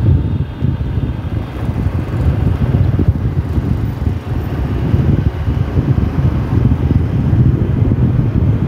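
Wind buffeting the microphone of a moving motorcycle: a loud, steady low rumble with the bike's running and road noise underneath.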